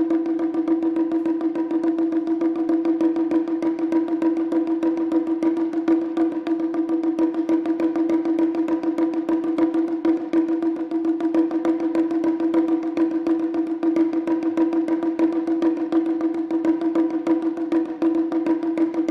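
Japanese taiko drums played in a fast, dense rhythm with sharp, clicking strokes, over a steady held musical tone.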